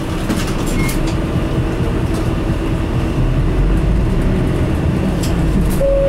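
Isuzu Cubic city bus under way, heard from inside the cabin: diesel engine and road rumble, the engine note growing heavier about halfway through, with light interior rattles and clicks.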